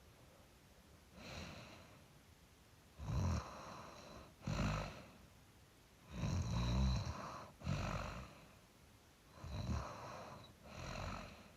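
A sleeping person snoring: seven rough snores, most in pairs a little over a second apart, about one pair every three seconds.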